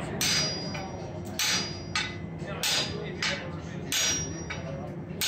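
Two smiths' hand hammers striking red-hot steel on an anvil in turn, about ten blows alternating loud and softer, the louder ones ringing from the anvil.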